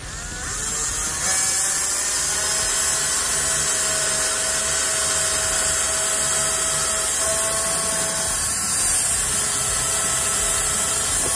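Electric drill running steadily as its bit bores through a guitar body into the neck heel, making a pilot hole for a longer neck screw. The motor winds up over about the first second, then holds an even whine.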